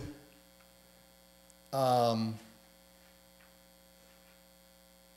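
Steady electrical mains hum, with one short falling vocal sound from a man's voice about two seconds in.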